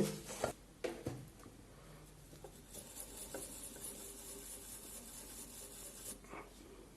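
A few light clicks of small tools on a phone circuit board, then a faint, scratchy rubbing that stops abruptly near the end, as the board's connector pads are resoldered.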